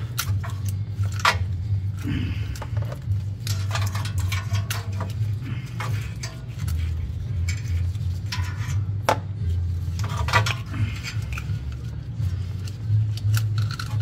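Transmission wiring harness connectors and wires clicking, clattering and scraping against the valve body as the harness is fished out by hand, over a steady low hum.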